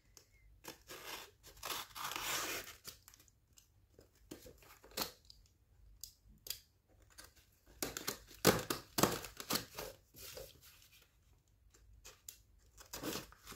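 Product packaging being torn and crinkled open by hand, in irregular bursts of tearing and rustling that are busiest about eight to nine seconds in.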